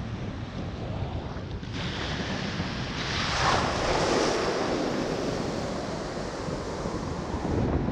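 Ocean surf breaking on the beach: a wave crashes about halfway through, rushing loudly and then washing out. Wind rumbles steadily on the microphone underneath.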